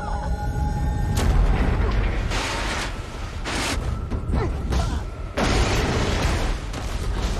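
Dramatic sound effects from a TV episode's soundtrack: a deep rumble under surges of rushing noise, the strongest starting about a second in and again about five and a half seconds in, with music beneath.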